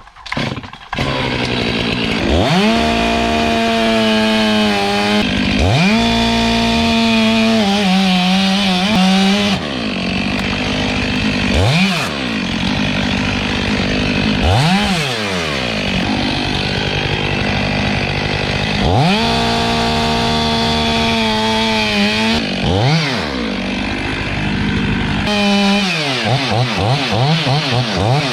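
A large chainsaw's two-stroke engine starts about a second in, then is run up to full revs again and again and let fall back. It holds several long high-revving stretches, with short throttle blips between them.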